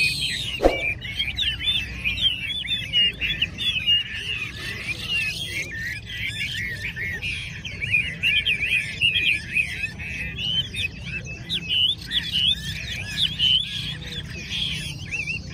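Many caged Chinese hwamei singing at once: a dense chorus of overlapping, rapidly varied whistled phrases. Under a second in there is one short, loud downward-sweeping sound ending in a click.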